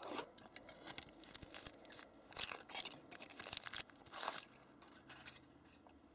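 Kinder Surprise egg's foil wrapper being torn and crinkled in faint, irregular bursts that die away near the end.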